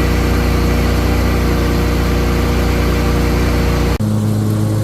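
Small engine of a ride-on machine running steadily at a constant speed. About four seconds in, the note changes abruptly to a different steady hum.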